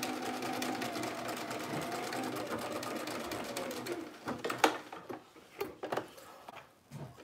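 Bernina sewing machine running steadily, stitching a straight seam, then stopping about four seconds in. A few sharp clicks and knocks follow.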